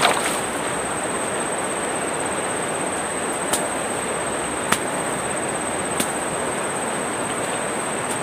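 Floodwater river rushing steadily past the bank, swollen and fast after a flood. A few short sharp clicks come in the middle.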